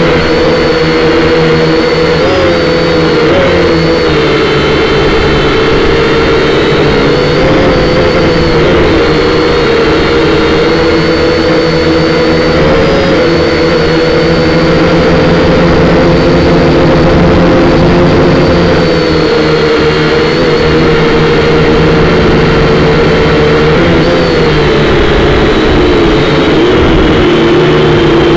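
Quadcopter's motors and propellers whining loudly in flight, a steady buzz whose pitch wavers as it manoeuvres and drops a little near the end.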